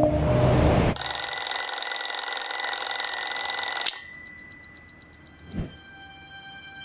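A short rushing whoosh, then a twin-bell alarm clock ringing loudly and steadily for about three seconds. The ringing is cut off abruptly when a hand presses down on the clock, leaving a faint fading ring and one soft thump about a second and a half later.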